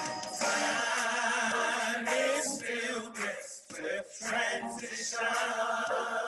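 Recorded gospel hymn: voices singing, played back through a video call.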